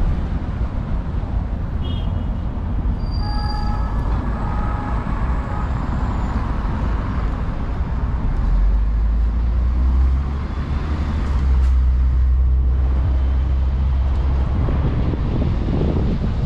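Open-top double-decker tour bus driving over cobbles, a steady low engine and road rumble with wind buffeting the microphone and traffic around it. The rumble grows heavier about eight seconds in, and a few short faint high tones sound about three seconds in.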